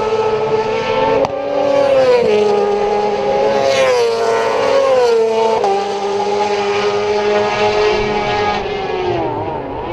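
Superbike race engine at high revs, its high-pitched note rising and then dropping sharply with each gear change, several times over; it falls away near the end.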